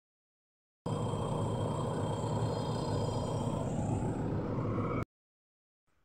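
JCB 3DX backhoe loader's diesel engine running steadily, with a thin high whine over the low rumble. It cuts in about a second in and cuts off abruptly about five seconds in.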